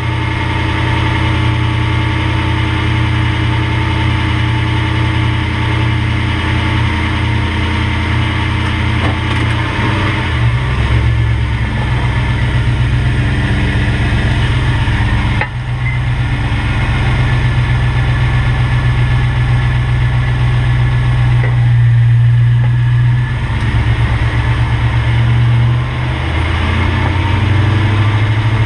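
2005 Toyota Tundra pickup's engine running with a steady low hum. It changes pitch about ten seconds in, and again after a brief dip about fifteen seconds in.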